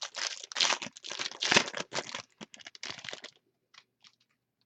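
Trading-card pack wrapper being crinkled and torn open: a run of crackly rustling that stops about three and a half seconds in, followed by a few faint clicks.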